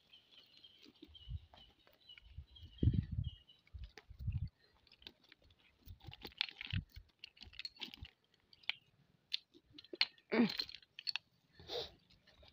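Hands working mullet loose from a nylon cast net on wet mud: scattered clicks, crunches and soft squelches of net mesh, fish and mud, with a few soft low thumps between about one and four seconds in.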